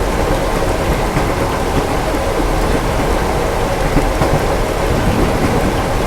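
Steady rain falling against a train compartment window, with a continuous deep rumble underneath.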